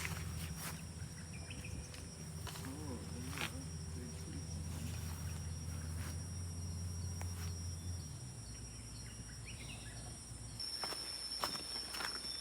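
Rainforest insects droning in one steady high-pitched note that grows louder about ten seconds in, with scattered footsteps. A low hum runs under it and stops about eight seconds in.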